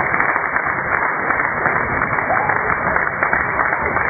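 Basketball spectators in a sports hall clapping, many hands at once, at a steady level.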